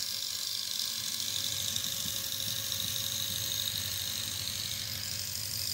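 Small electric motors whirring steadily, with a low pulsing hum underneath and no change in level.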